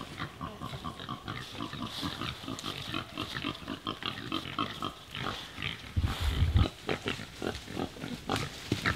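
Pigs grunting over and over in short, quick pulses, with a brief low rumble about six seconds in.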